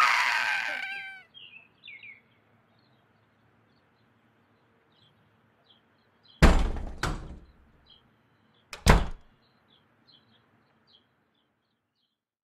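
Cartoon sound effects: a rising pitched glide at the start, then heavy thuds like a door banging, twice close together about six and a half seconds in and once more about nine seconds in. Faint bird chirps sound in the gaps.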